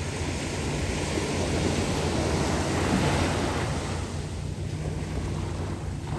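Calm ocean surf: a wave washes in, swelling to its loudest about halfway through and then easing off.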